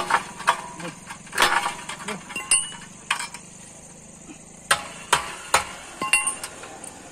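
Hammer knocking on a steel fence post and its fittings while barbed wire is fixed to it: about a dozen irregular metallic clinks with a short ring, with a pause of about a second in the middle.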